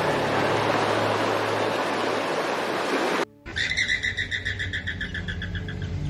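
Surf washing over rocks as a steady hiss, cut off abruptly a little past three seconds. A bird's rapid chattering call follows, short chirping notes repeated about ten times a second.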